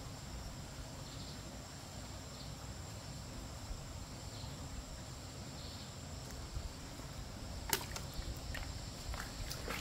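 Stream ambience: a low, steady rush of water under a thin, steady high insect whine, with a sharp click about eight seconds in and a few fainter clicks after it.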